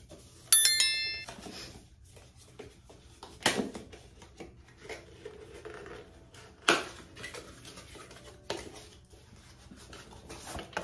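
A cardboard sunglasses box is handled and opened, giving soft rustling and scraping with sharper taps about three and a half and seven seconds in. Just under a second in comes a brief bright electronic chime.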